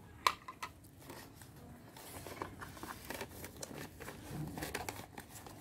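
Toy pieces and cardboard boxes being handled: one sharp click about a quarter second in, then scattered light clicks and rustling.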